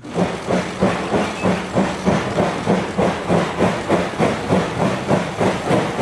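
JNR Class D51 steam locomotive D51 200 working along the track, its exhaust chuffing in a steady beat of about two and a half chuffs a second over a constant hiss of steam.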